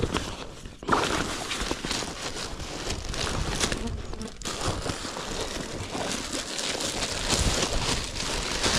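Rustling and crinkling of packaging and fabric as a swag and its parts are pulled out and handled, in irregular bursts with short lulls about a second in and again about four seconds in.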